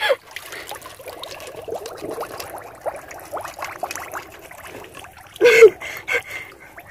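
Muddy water trickling and sloshing as hands work at the mouth of a flooded fish burrow. One brief, much louder sound comes about five and a half seconds in.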